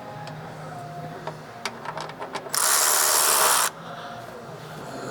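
Shop tool work: a string of sharp metallic clicks, then a loud hiss about a second long, under a faint steady low hum.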